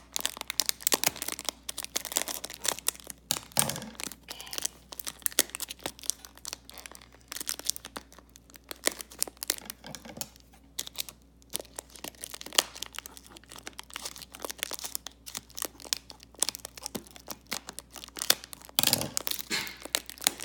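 Plastic toy packaging crinkling and tearing in irregular crackles as it is handled and pulled open.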